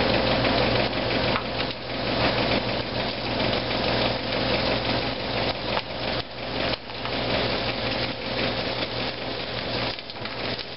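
Small battered pieces frying in hot oil in a cast-iron skillet: a dense, steady sizzle and crackle, with a steady low hum underneath.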